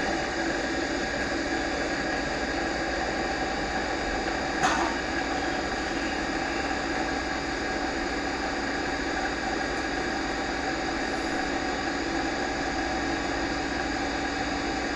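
Domestic electric water pump motor running steadily, switched back on after its seized cooling fan was freed by hand. A single short click sounds about four and a half seconds in.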